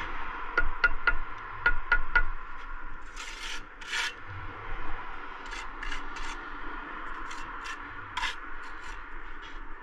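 Steel brick trowel working bricks and mortar: about six sharp, ringing taps in the first two seconds, then scraping strokes of the trowel over mortar and brick with scattered clicks.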